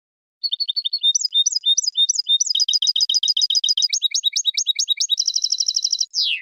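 European goldfinch singing a clean song of repeated high phrases: spaced notes at first, then quicker trills, a very fast trill near the end, and a final downward slur.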